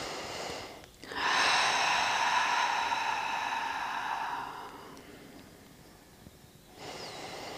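A woman breathing deeply: a breath in, then a long sighing breath out that fades over about four seconds, and a new breath in near the end.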